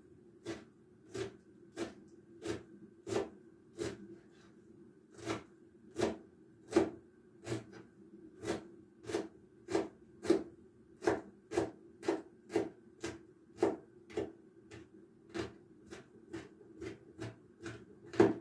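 Kitchen knife chopping fresh herbs on a wooden cutting board: the blade knocks the board in a steady rhythm of about one and a half strokes a second, with a short pause about four seconds in.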